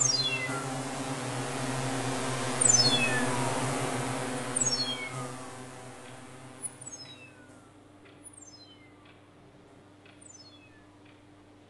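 Electronic sound design: repeated runs of rapid high pips, each falling steeply in pitch over about a second, over a steady low hum. A noisy swell rises to a peak about three seconds in and fades away by the middle.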